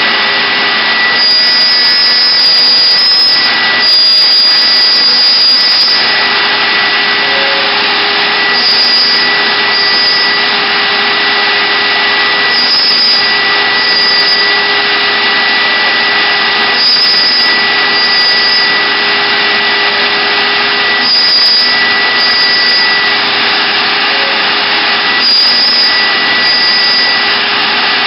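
CNC router spindle running loud and steady with a high whine while the bit cuts wood, the tone shifting slightly every few seconds.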